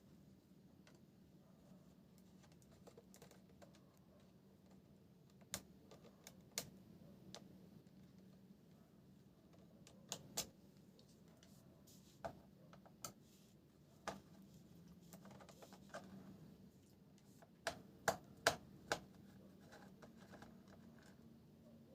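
Scattered light clicks and taps of hands handling a laptop and small tools, a dozen or so at uneven spacing with a few close together near the end, over a steady low hum.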